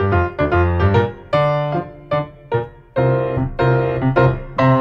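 Background piano music: a run of struck notes over low bass notes.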